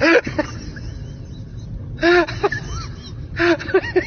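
A man's voice giving short cries that rise and fall in pitch, three of them, each trailed by faint repeats, over a steady low rumble.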